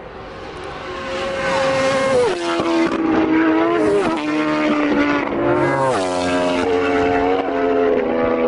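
Road-racing motorcycle engine at high revs, growing louder over the first second or so, then dropping in pitch in three quick steps as it shifts up through the gears.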